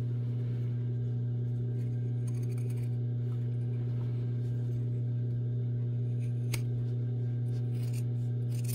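Large tailor's shears cutting through a thick denim seam allowance on jeans, trimming off the excess, with a few quiet snips and one sharp click about six and a half seconds in. Under it runs a steady low electric hum.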